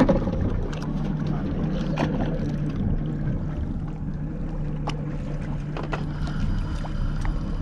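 Boat engine running steadily at low revs, with a sharp knock at the start and a few lighter knocks.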